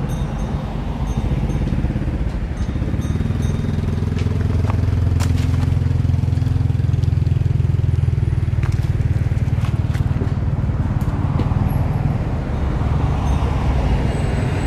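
Low engine rumble of a motor vehicle on a nearby road, swelling through the middle and easing off near the end, with scattered sharp clicks and crackles over it.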